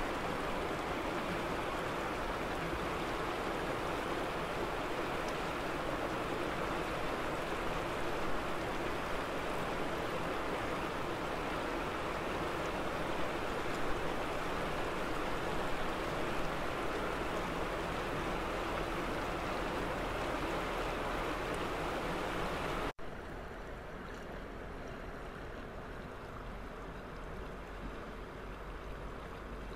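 Arkansas River water running over rocks and boulders in the shallows, a steady rushing babble. About 23 seconds in, the sound cuts abruptly to a quieter, duller stretch of the same flowing water.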